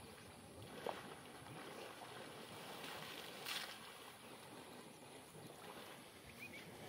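Faint water sloshing from Asian elephants wading and bathing in a muddy pond, with one brief louder splash about three and a half seconds in.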